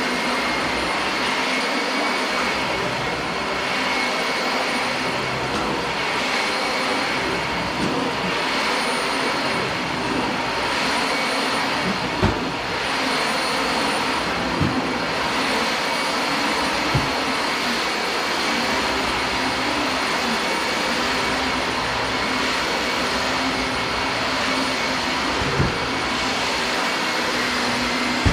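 Dyson DC25 Animal upright vacuum cleaner running steadily while vacuuming a floor, a constant motor whine over the rush of air, with strong suction from freshly replaced genuine Dyson filters. A few short knocks break in, about twelve, fifteen, seventeen and twenty-six seconds in.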